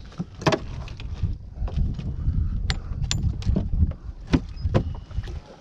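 Irregular low rumbling noise with a scattered series of sharp clicks and knocks; the loudest knocks come about half a second and about four and a half seconds in.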